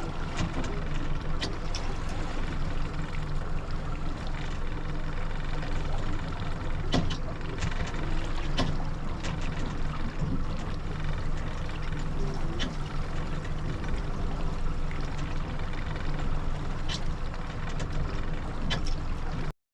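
A boat's engine runs steadily with a constant low drone, with scattered sharp knocks over it.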